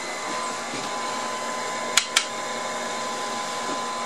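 A steady, faint 1 kHz test tone from the 813 push-pull vacuum-tube amplifier running at high power, over a constant fan-like rushing hiss from the test bench. Two sharp clicks come about two seconds in, a fifth of a second apart.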